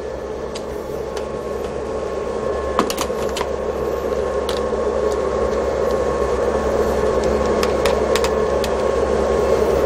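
Steady hum of running electrical equipment and cooling fans, with a faint steady whine, growing slowly louder. A few light clicks of handling sound over it.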